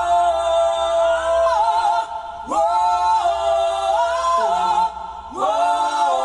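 Multitracked backing-vocal harmonies sung a cappella, several stacked voices forming one full chord, played back over studio monitors. Each held chord lasts about two seconds and opens with a scoop up in pitch: one at the start, another a little before the halfway point, and a third beginning about a second before the end.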